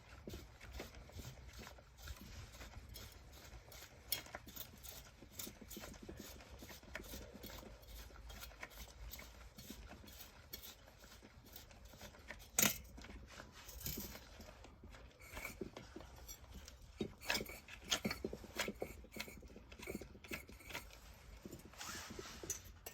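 Irregular light metallic clicks and clinks of small metal parts and tools being handled, with a sharper knock about twelve seconds in.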